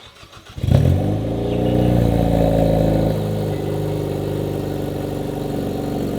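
Hyundai Veloster N's 2.0-litre turbocharged four-cylinder cranking briefly and catching under a second in, flaring up in revs, then dropping about three seconds in to a steady idle, running through a newly fitted catless downpipe. The owner hears an exhaust leak in it, which he puts down to stripped downpipe bolts.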